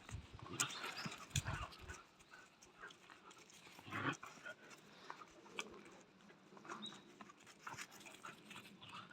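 Puppies moving about and scuffling, with scattered light clicks and thumps and a louder thump about four seconds in.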